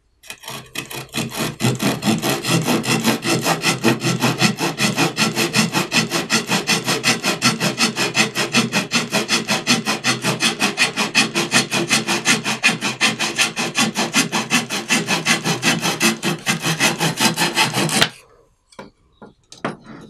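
Leatherman Surge multitool's folding saw blade cutting through pine by hand, in rapid, even back-and-forth strokes, about two or three a second. The sawing stops abruptly near the end, followed by a few light clicks.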